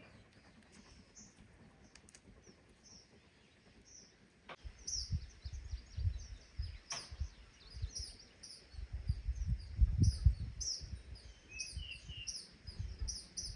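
Small birds chirping in short, repeated calls, more often from about five seconds in. From about four and a half seconds in, an uneven low rumble on the microphone becomes the loudest sound, with two sharp clicks.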